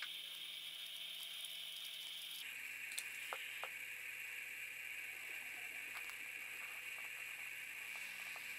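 Faint steady high hiss, changing abruptly about two seconds in, with a few light clicks around three seconds in.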